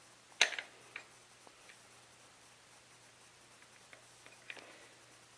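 Sharp click about half a second in, a softer click a second in and a few faint ticks near the end, from the Remington Versamax shotgun's charging handle and receiver parts being worked by hand to get the handle off.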